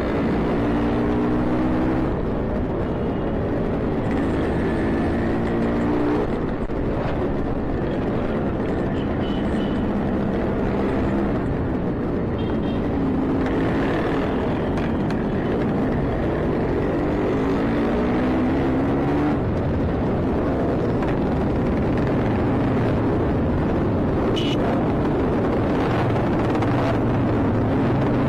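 Two-stroke Yamaha RX-series motorcycle engine running under way in traffic, its pitch rising and falling repeatedly as the throttle is opened and closed.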